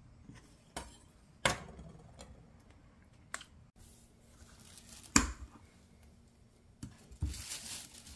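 A few sharp taps of a kitchen knife on a bamboo cutting board while carrot is sliced into strips, then a hard knock of kitchen things set down on a stone countertop, and a short scraping rustle near the end.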